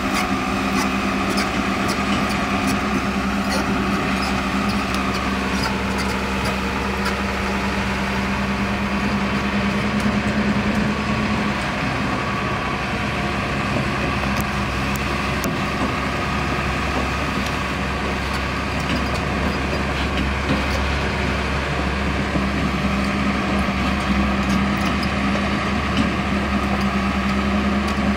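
Diesel engine of a Hyundai R245LR Smart Plus long-reach excavator running steadily, its hum easing for a few seconds in the middle and then returning.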